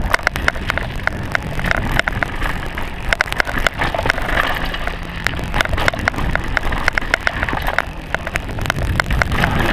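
Full-suspension mountain bike descending a rough dirt trail: tyres rumbling over the ground, with many irregular sharp clicks and rattles from the bike as it goes over bumps, and wind buffeting the microphone.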